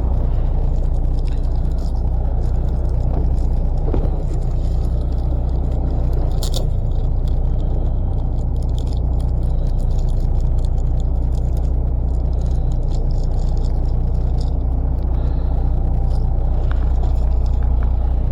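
A fishing boat's engine running steadily, a constant low rumble.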